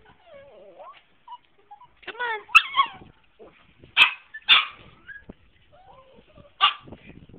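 Two small dogs play-fighting, yapping in short sharp yips and barks: a quick run of yaps about two seconds in, two loud barks around four seconds, and another near the end, with soft whining between.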